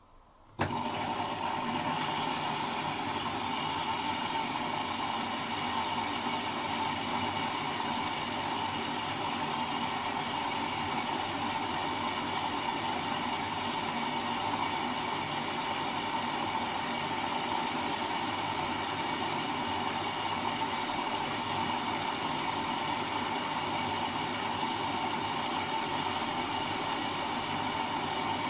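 Servis M3008B washing machine starting its final-rinse water fill: a click about half a second in, then a steady rush of water through the inlet valve with a constant hum.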